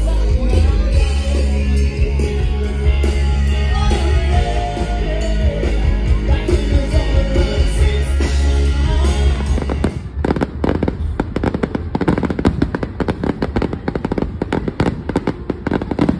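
A live rock cover band playing through a PA, with heavy bass and drums. About ten seconds in, the music gives way to fireworks going off: a rapid, dense string of bangs and crackles.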